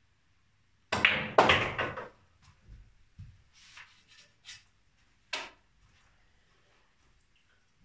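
Cue tip striking the cue ball, then a sharp clack about half a second later as the cue ball hits the brown and the brown rolls into the pocket with a low rumble. A few softer knocks and clicks of balls follow.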